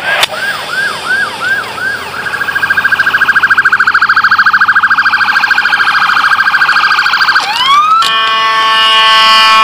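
Electronic emergency-vehicle siren, loud. It runs in a yelp of about three rising-and-falling sweeps a second, then switches to a much faster warble. Near the end it gives a few rising sweeps. In the last second and a half a steady horn chord of several held tones takes over.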